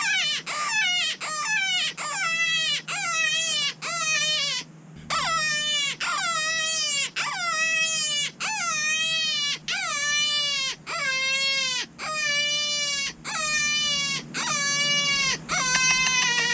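Electronic predator caller playing an animal distress call to lure coyotes: a string of short wailing cries, each falling in pitch, about two a second, then after a brief break about five seconds in, longer drawn-out cries about one a second.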